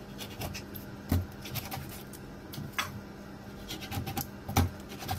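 Kitchen knife slicing a raw needlefish: scratchy scraping of the blade with scattered knocks against the surface beneath, two louder knocks about a second in and near the end.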